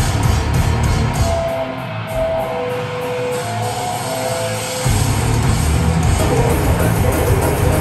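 Metalcore band playing live through the PA: distorted guitars hold long melodic notes over drums and bass, then about five seconds in the band comes in heavier and louder.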